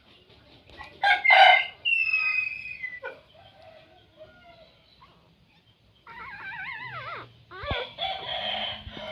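A rooster crows loudly about a second in. A second, wavering call starts about six seconds in and falls off at its end.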